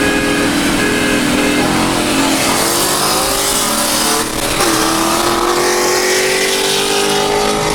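Car engine accelerating hard, its pitch climbing. About four and a half seconds in the pitch drops sharply as it shifts up a gear, then it climbs again.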